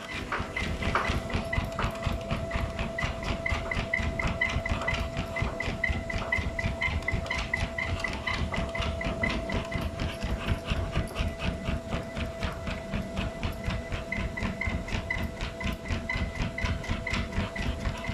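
Motorised treadmill running with a steady whine while a pit bull trots on the belt, its paws striking in a quick, even rhythm, with the dog's panting.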